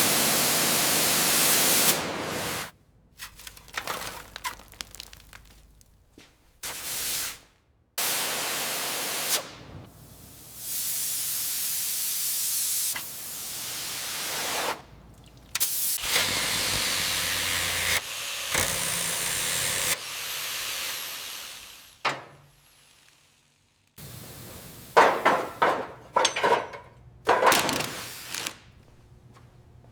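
Repeated bursts of hissing spray, each a second or a few long and separated by short gaps. A handful of sharp clattering knocks comes near the end.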